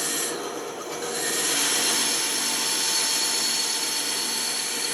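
A power tool working wood, a steady hissing run that dips briefly about half a second in and then carries on evenly.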